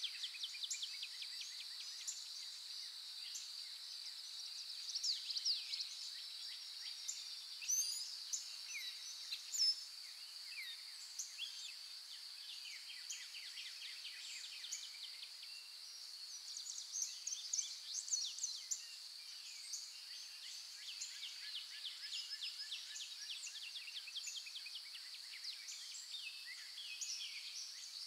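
Birds chirping and trilling, many short calls and rapid trills, over a steady high-pitched insect drone.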